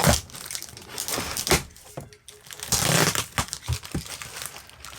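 Packaging crinkling and rustling as a parcel is handled and unwrapped, in irregular bursts with a brief tearing quality, the longest and loudest stretch about three seconds in.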